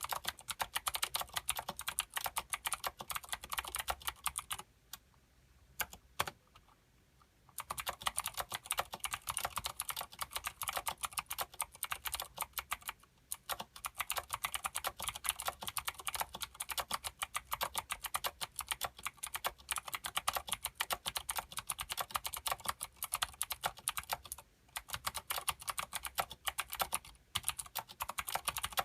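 Fast continuous typing on a Filco Minila mechanical keyboard with clicky Cherry MX Blue switches and thick PBT doubleshot keycaps: a dense run of key clicks, with a pause of about two and a half seconds some five seconds in and two short breaks later.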